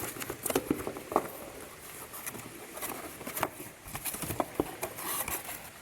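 Handling of new timing-belt kit parts and their packaging: scattered light clicks, taps and rustles at an uneven pace.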